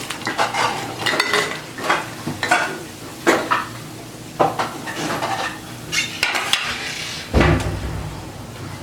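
Metal slotted ladle clinking and scraping against the pan as fried ragi bondas are lifted out of the hot oil, with the oil sizzling underneath. A duller, heavier knock comes near the end.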